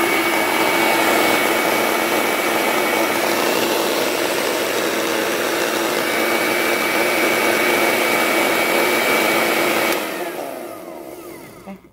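Old countertop blender with a thick glass jar running loud and steady, frothing hot liquid. It is switched off about ten seconds in and its motor winds down.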